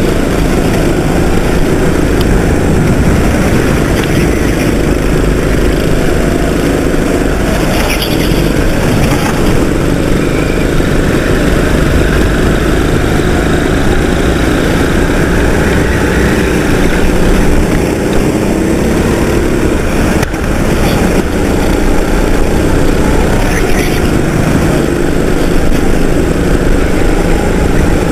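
Racing kart's engine running hard, heard from a camera mounted on the kart, with the engine note rising and falling slightly through the corners; other karts' engines run close by.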